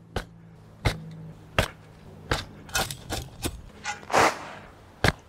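Shovel digging into turf and soil: a run of sharp chopping strikes as the steel blade is driven into the ground, roughly one to two a second. Just after 4 s a shovelful of dirt is thrown onto a tarp, a short rushing patter.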